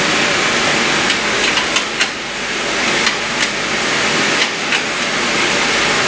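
A steady loud hiss with several light clicks and knocks scattered through it.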